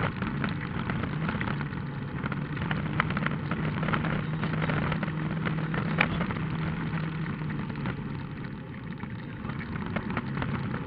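Rally car engine running at a fairly steady pitch, heard from inside the cabin while driving on a gravel road, with tyre noise and many small clicks of stones against the car. There is one sharp knock about six seconds in.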